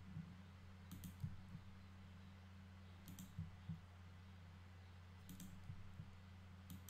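A few faint computer keyboard and mouse clicks, a second or two apart, over a low steady hum.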